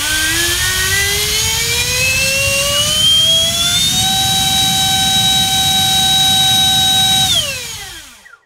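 60mm five-blade electric ducted fan driven by a GoolRC 2850 4450kV inrunner motor on a 3-cell battery, spooling up with a whine that rises steadily for about four seconds. It holds steady at top speed for about three seconds, then winds down and stops as the throttle is cut.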